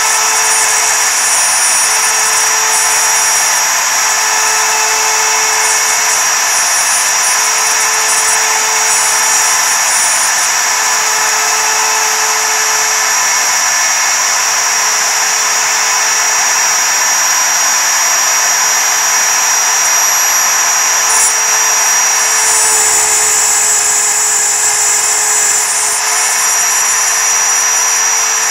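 Mostly Printed CNC's router spindle running at full speed, driving a single-flute end mill through 6061 aluminium plate: a loud, steady high-pitched whine over the continuous hiss of the cut.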